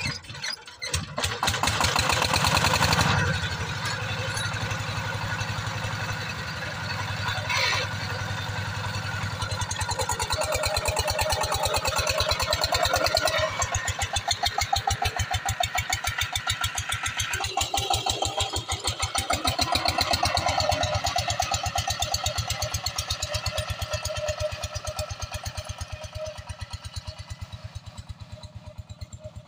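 Single-cylinder Chinese diesel engine of a two-wheel power tiller catching about a second in and chugging with an even, rapid beat, revved harder for a couple of seconds, then running steadily under load as it pulls a loaded trolley away, fading toward the end.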